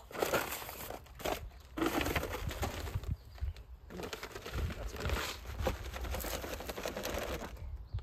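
Plastic wrapper crinkling and rustling in irregular bursts as a new spool of baler twine is unwrapped and loaded into a round baler's twine box.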